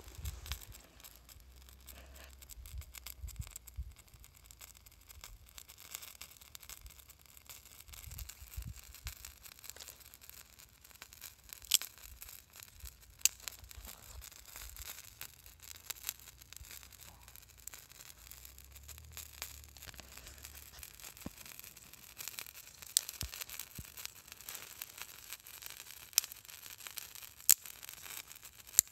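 Small twig fire catching over a fire-starter nugget: a faint steady hiss with scattered sharp crackles and pops, more of them in the second half.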